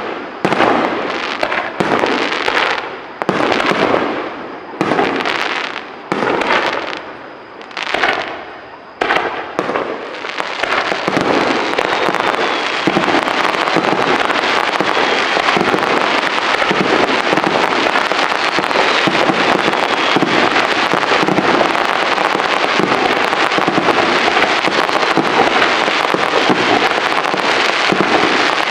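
Fireworks display: aerial shells bursting one after another, about one a second. From about ten seconds in they merge into a continuous, dense volley of bursts and crackling.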